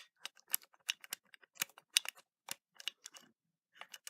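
Irregular sharp metallic clicks of a key being worked in a Schlage BE365 keypad deadbolt's key cylinder.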